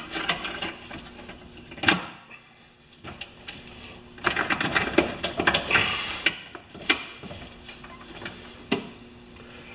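Wheel hub assembly being worked onto the axle shaft of a Honda HRR216 mower's transmission: parts clicking and rattling by hand, with a sharp click about two seconds in, a busy spell of small clicks from about four to seven seconds, and a couple of single clicks near the end.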